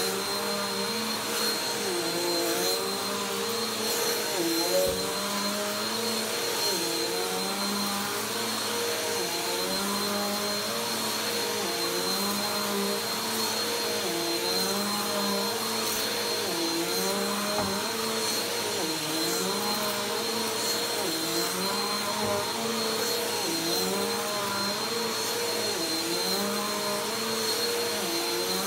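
Upright vacuum cleaner running on carpet, its motor pitch dipping and recovering in a regular rhythm about once every two seconds as it is pushed back and forth.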